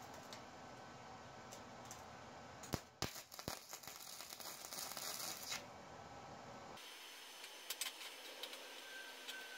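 Flux-core wire-feed welding arc crackling in one burst of about two and a half seconds, struck with a sharp pop about three seconds in. The Harbor Freight Titanium Multiprocess 200 is running 030 flux-core wire on 14-gauge steel at about 135 wire speed and 16 volts.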